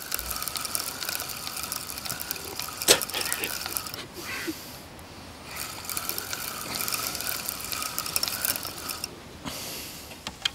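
Carp fishing reel ratcheting with fast, dense clicking in two long stretches, broken by a pause of about a second and a half in the middle.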